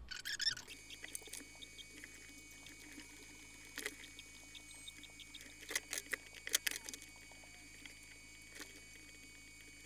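Faint scattered clicks and taps from a circuit board and soldering iron being handled during hand soldering. A cluster of clicks comes about two-thirds of the way through, over a steady low electrical hum.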